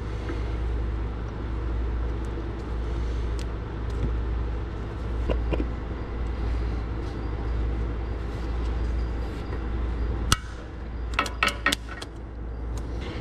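Faint metal handling sounds over a steady low hum, then a sharp metallic click about ten seconds in and a quick cluster of four or five clicks a second later as a snap ring is worked into the groove of an automatic transmission's servo bore.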